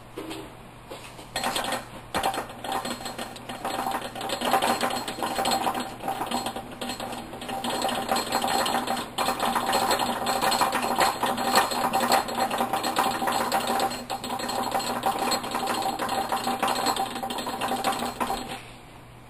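Metal lathe starting up about a second in and running with a steady whine and rapid mechanical clatter, then shutting off just before the end.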